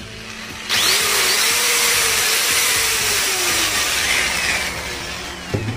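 Bosch GWS 600 angle grinder switched on straight from the mains, running at full speed with no load for about four seconds, then winding down near the end. It runs with no unusual noise, even though its spindle is worn and wobbles under use.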